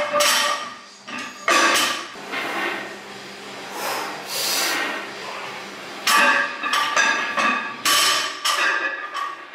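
A run of short clanking and rasping noises from gym gear being handled, about a dozen spread over several seconds and bunched together in the second half.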